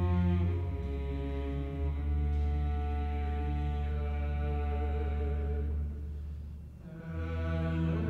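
Mixed chorus singing slow, sustained chords over a string quartet with a low cello line. The sound thins and drops briefly about six seconds in, then a new full chord comes in about a second later.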